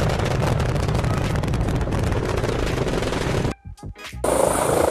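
Rocket launch sound effect: dense, crackling engine noise that cuts off about three and a half seconds in. After a brief gap, a helicopter's rotor sound starts near the end.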